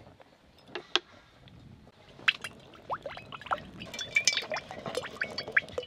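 Refined white cooking oil poured from a plastic bottle into an empty metal kadai, glugging and splashing from about two seconds in, after a couple of clicks near the start.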